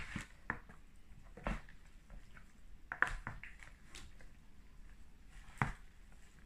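Salad being tossed with plastic salad servers in a plastic bowl: soft rustling of lettuce with scattered clicks of the servers against the bowl, the sharpest about three seconds in and again near the end.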